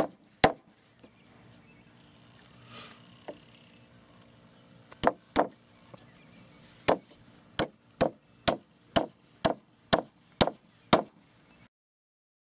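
Hammer driving nails into a wooden 4x4 block: two blows near the start, then after a pause a run of sharp blows at about two a second.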